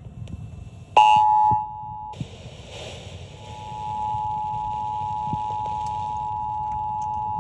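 Emergency Alert System attention signal from a radio: two steady pitches sounding together as one alarm tone. It is loud for about a second near the start, breaks off into hiss, then comes back about three and a half seconds in and holds steady.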